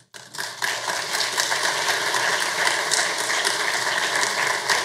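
Audience applauding, a dense patter of many hands clapping that swells within the first half second and then holds steady.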